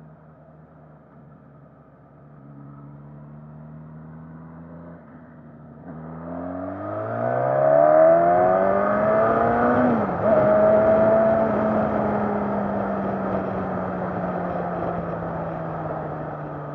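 Suzuki Katana's 999 cc inline-four: it runs at low revs for about six seconds, then its pitch climbs steeply under hard acceleration. About ten seconds in the pitch dips sharply at a gear change, then holds and slowly falls, with wind rush over the microphone.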